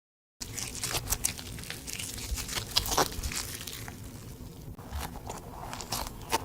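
Slime being kneaded and stretched by hand, with many irregular sticky crackles and pops of trapped air bubbles, after a brief moment of silence at the start.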